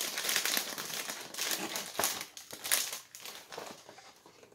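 Crinkling and rustling of a cracker box's clear plastic inner bag and cardboard flaps as hands pull them open, busiest for about three seconds and then tapering off.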